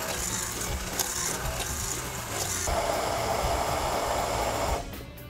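An immersion stick blender running in a plastic beaker, puréeing basil, cheese and nuts into pesto. Partway through, as olive oil is poured in and the mix turns liquid, the sound changes to a lower, fuller churning. The motor stops shortly before the end.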